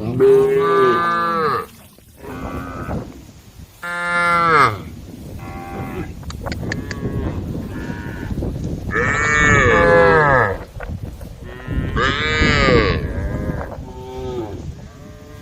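A herd of cows mooing, several animals calling one after another and sometimes overlapping, each call a long, rising-then-falling moo; the loudest calls come right at the start, about four seconds in and around nine to ten seconds in.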